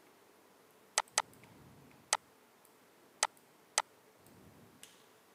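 Five separate sharp clicks from a computer mouse and keyboard being worked, irregularly spaced.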